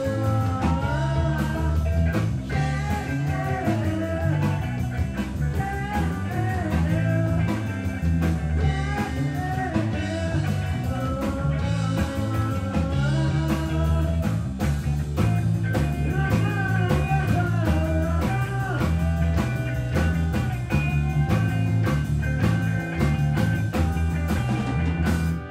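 A live rock band in a funky, soulful style playing: a male lead voice singing over electric guitar, bass and a drum kit keeping a steady beat. The music stops abruptly at the very end.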